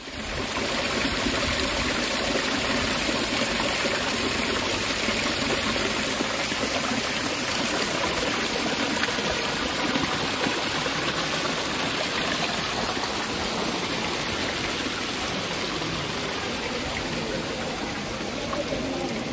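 Steady rush of running water, an even hiss that comes in suddenly at the start and holds without change.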